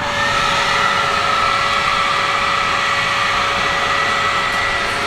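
Blower motor running at a steady speed: a loud, even rush of air with a constant whine. It comes on suddenly and holds without change.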